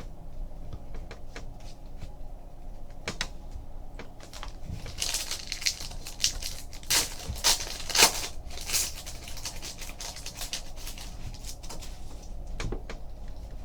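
Trading card packs being handled: light clicks and rustles, with a run of sharp crinkling and tearing of a foil pack wrapper about midway.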